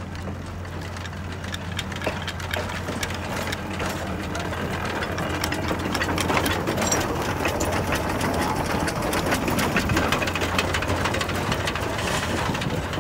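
Shay No. 4 geared steam locomotive passing close by: a rapid, even chuffing from its exhaust and the clatter of its geared drive. It grows louder as the engine draws level, about halfway through.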